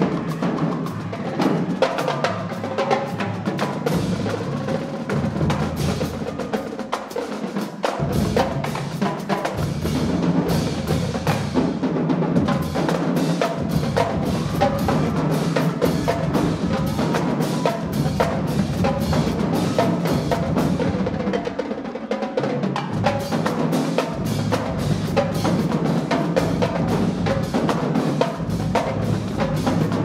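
Marching band drumline playing a continuous cadence: snare drums, tenor drums and pitched bass drums with rapid strokes.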